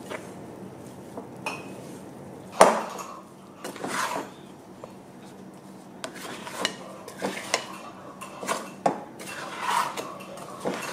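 Bread dough being mixed by hand and with a spatula in a glass mixing bowl: irregular knocks and taps against the glass, the loudest one about two and a half seconds in.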